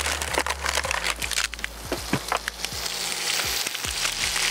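Steak sizzling in a frying pan, a steady hiss full of sharp crackling pops.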